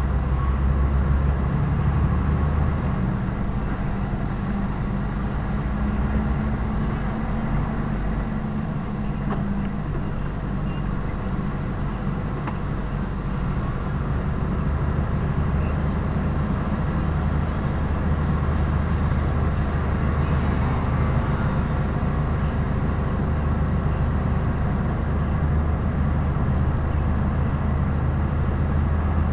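Heavy semi-truck's diesel engine running under way, a steady low drone whose note changes a few times in the first ten seconds, then holds.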